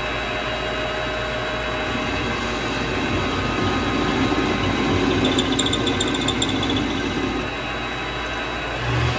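Vevor MX 400 mini lathe running with its chuck spinning while the cutting tool turns a chamfer on the corner of the hammerhead workpiece. The cut grows louder in the middle, with a high squeal for about a second, and there is a low thump near the end.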